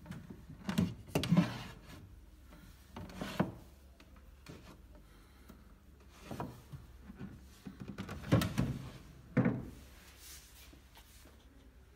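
Wooden parts of an antique secretary's fitted interior being handled: small drawers and black columns sliding against the wood and set back into place, in several short bunches of wooden knocks and rubs.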